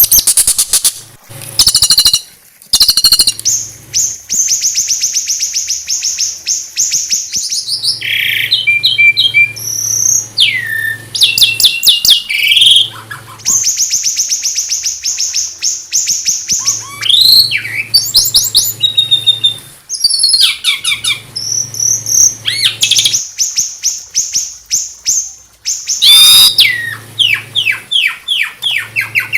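A small songbird singing in long, very fast high trills a few seconds each, alternating with sweeping whistles and quick runs of falling notes: the rapid-fire 'tembakan' phrases used as training song for shamas.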